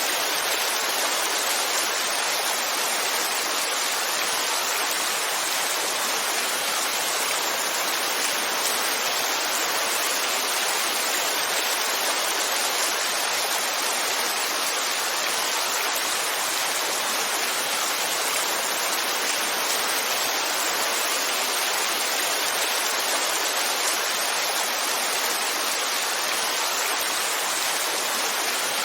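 Heavy rain falling in a steady, even hiss with no breaks or changes.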